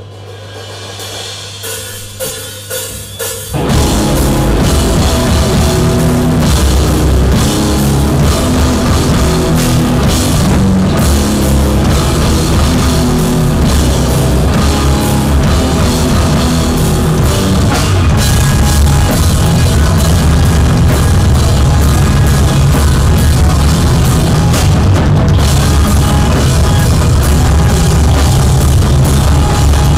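Live rock band starting a song: a quieter few seconds over a steady amplifier hum, then drums, cymbals and electric instruments come in together about three and a half seconds in and play loud and fast.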